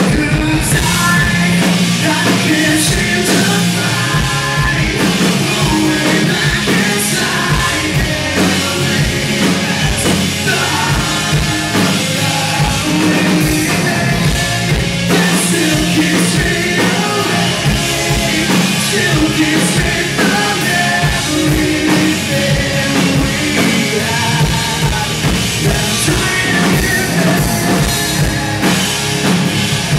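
Live rock music: a male lead singer singing loudly into a microphone over a full rock band.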